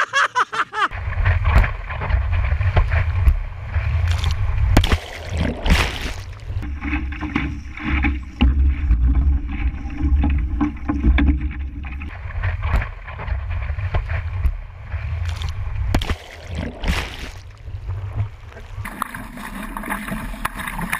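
Wind buffeting the microphone of a camera on a small sailing dinghy, a heavy rumble with water splashing and slapping against the hull. Near the end it changes to a brighter hiss of surf.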